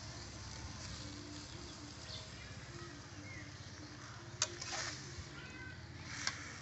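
Food frying in a wok with a steady hiss, and a metal spatula clacking against the wok twice, about four and six seconds in. Faint bird chirps can be heard behind it.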